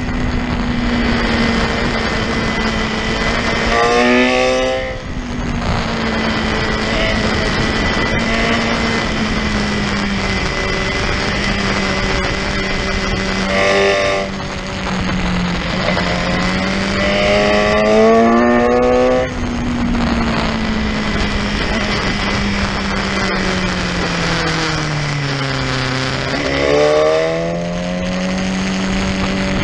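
Sport motorcycle engine at track speed, heard from the bike itself with wind rushing over the microphone. The engine note rises and falls with the throttle and jumps at several gear changes. It drops lowest near the end, then climbs again as the bike accelerates.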